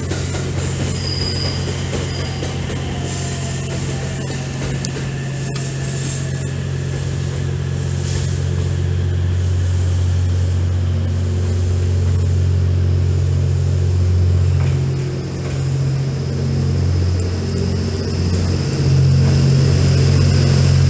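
Diesel generator engines of the Twilight Express Mizukaze (Kiha 87 series diesel-electric train) running with a steady low hum as the train rolls slowly past, growing louder over the last few seconds as the cars come close.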